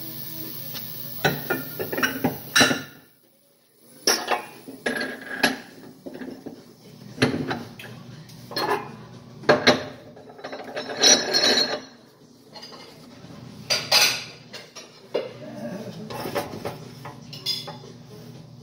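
Irregular metal clanks and knocks as a steel wheel with its tire is set onto an FMC tire changer's threaded center post and the clamping cone is fitted on top.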